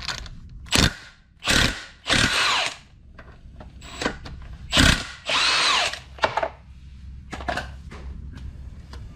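Impact wrench run in several short bursts, the two longest about two and five seconds in, with handling clicks between: undoing the nut on a motorcycle engine's pinion gear, which comes loose.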